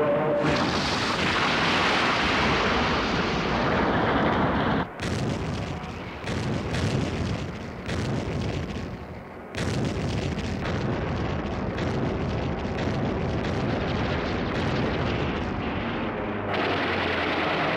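Battle sound: a long explosion roar for about the first five seconds, then rapid anti-aircraft gunfire crackling in bursts. The firing grows denser near the end, as an aircraft engine drone comes back in.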